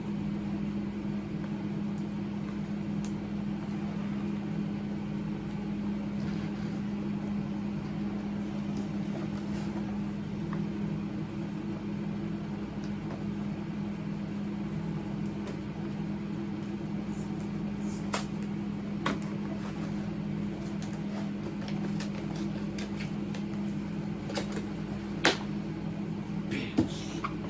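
Steady low mechanical hum of a running motor or fan, with a few sharp clicks and taps from plastic packaging being handled, most of them in the second half.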